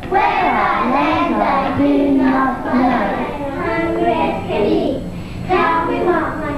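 A class of young children singing a song together, several voices at once, on old reel-to-reel videotape with a steady low hum beneath.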